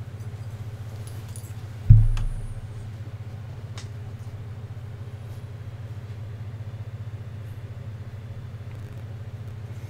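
A steady low hum with one loud dull thump about two seconds in, and a few faint clicks from scissors trimming carpet in a truck's footwell.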